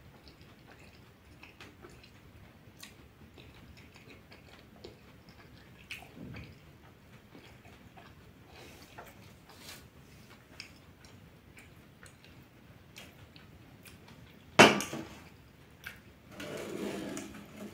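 Quiet eating sounds: soft clicks and smacks of fingers picking food off a stainless steel plate, and chewing. About two seconds before the end comes one sharp, loud knock, followed by about a second of rustling noise.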